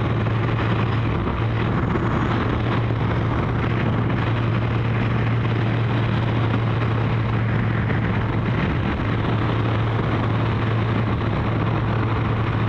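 Kawasaki GPZ1100 inline-four motorcycle engine running at a steady cruising speed, with a constant low drone and no revving up or down, under the rush of wind and road noise.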